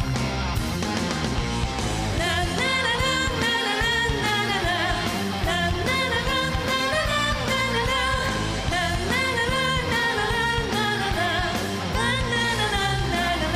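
A woman singing a Korean rock song in full voice over a live rock band; after a short instrumental stretch left over from the guitar solo, her voice comes in about two seconds in.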